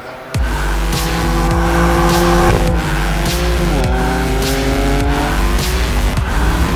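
BMW M4's twin-turbo inline-six engine running hard at high revs while drifting, its pitch dipping and then climbing again about four seconds in. It cuts in suddenly about half a second in, over a music track with a steady beat.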